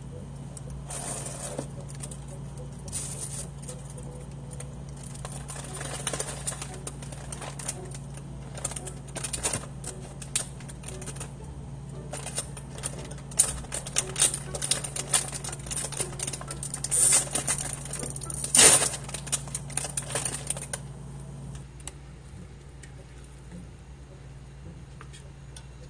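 Thin plastic bag crinkling and rustling in irregular crackles as it is handled, loudest near the end, then it stops. A steady low hum runs underneath.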